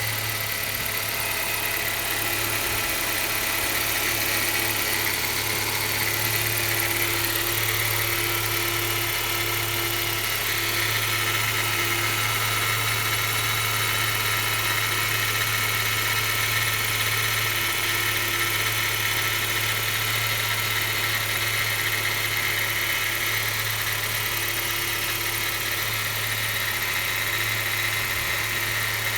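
BMW 116i (E87) four-cylinder petrol engine idling just after a cold start, with a higher-pitched tone that comes and goes several times over the steady run. This is the noise that appears on every first start of the morning since the timing chain was replaced.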